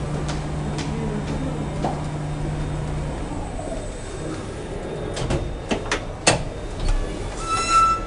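Cibes elevator's drive humming steadily, then cutting off about three seconds in as the lift stops. A few sharp clicks and knocks follow, and a short beeping tone sounds near the end.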